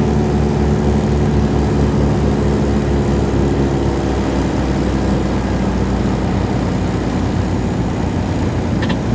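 Small propeller plane's engine running steadily with a low pulsing drone, easing off and winding down over the last few seconds.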